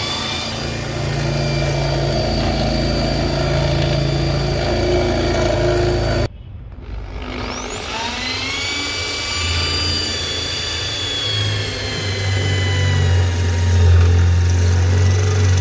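Electric drill motor spinning up with a quickly rising whine and running steadily, cutting off abruptly about six seconds in. It spins up again about a second later and keeps running, its pitch sagging slightly.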